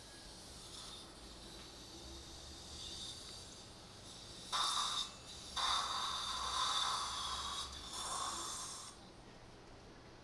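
Implant surgical handpiece drilling the implant site through a guide template, making a rough, noisy whir. It comes in two stretches, the first starting about four and a half seconds in, with a brief break between, and it stops about nine seconds in.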